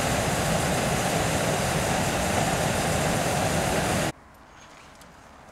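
Hot-air balloon propane burner firing: a loud, steady blast of noise that cuts off suddenly about four seconds in, leaving faint outdoor sound with a few small clicks.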